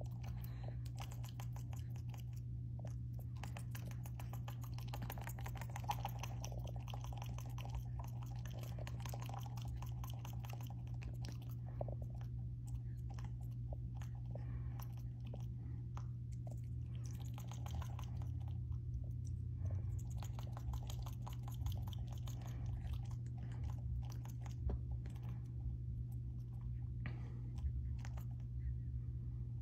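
Young monkey chewing and nibbling on a person's thumb: quick, irregular wet clicks and smacks, over a steady low hum.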